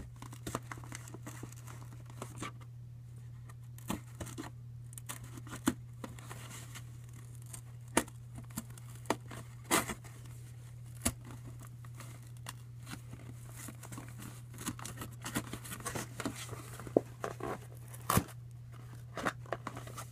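Thin cereal-box cardboard being cut and torn by hand: irregular scraping, tearing and sharp clicks, over a steady low hum.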